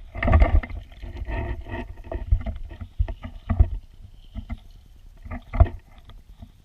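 Muffled rumble and sloshing of weirpool water picked up underwater, with irregular knocks and thumps of varying strength.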